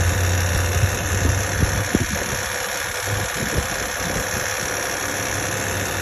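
A 2008 Honda Odyssey EX's 3.5-litre V6 idling steadily, with irregular sharp ticks over the hum. This is the noise that appeared after the timing belt was changed.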